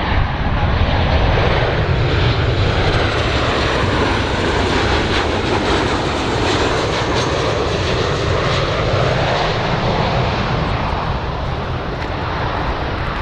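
Boeing 737 jet airliner on landing approach, its twin turbofan engines giving a steady roar with a faint high whine that rises in pitch a few seconds in. The noise eases slightly near the end.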